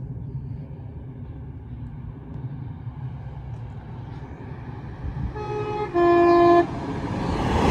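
Thameslink Class 700 electric train approaching, its rumble building, and sounding its two-tone horn about five and a half seconds in: a short higher note, then a louder, lower one.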